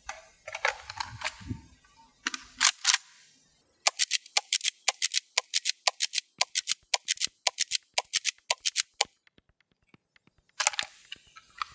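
Tokyo Marui KSG gas pump-action airsoft shotgun being fired over and over: a fast, even string of sharp clacks from shots and pump strokes. It is framed by shorter bursts of clicking and clatter from the pump being worked and the gun handled.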